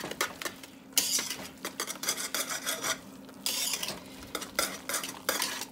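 Wire whisk beating thick mashed potatoes in a metal saucepan: repeated swishing strokes, with the whisk's wires clicking and scraping against the sides of the pot.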